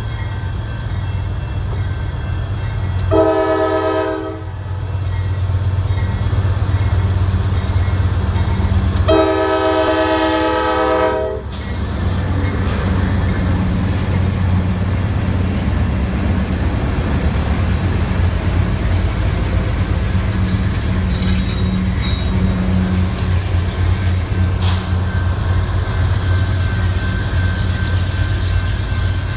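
Air horn of a CSX freight train's lead diesel locomotive sounding twice: a short blast about three seconds in and a longer one about nine seconds in, over the steady low rumble of the diesel engines. After the horn, the locomotives and freight cars keep rolling past close by with a steady rumble.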